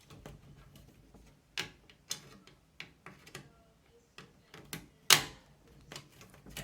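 Irregular clicks and knocks of hands handling computer case fans and parts, about eight in all, the loudest one about five seconds in.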